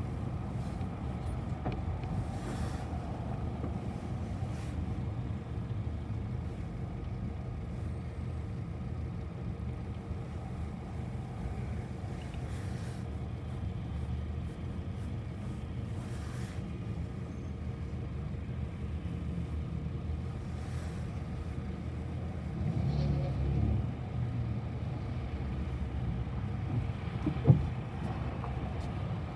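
City bus running along, heard from inside: a steady low engine and road rumble with a faint constant hum. It swells briefly a little past two-thirds through, and one sharp knock sounds near the end.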